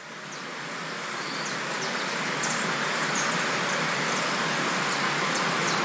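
Steady rushing of running water, fading in and growing louder over the first couple of seconds, with short faint high chirps scattered through it.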